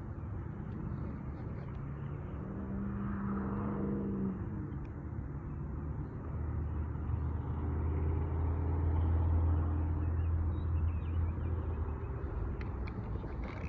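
A distant engine droning, with a steady low hum that grows louder about halfway through and then eases off.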